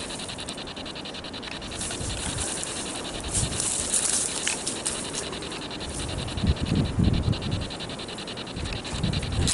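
Rustling and scraping of dry brush and clothing rubbing close to a handheld camera while moving through undergrowth, with a few low thumps about six to seven seconds in.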